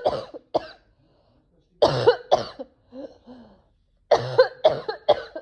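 A woman coughing in fits: a couple of harsh coughs about two seconds in, then a rapid run of four or five near the end. A coughing fit whose cause she is unsure of, wondering whether it is allergies.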